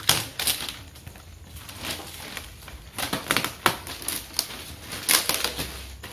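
Irregular clicks, taps and knocks of a power amplifier's boxed packaging being handled, with some bunched together in quick runs.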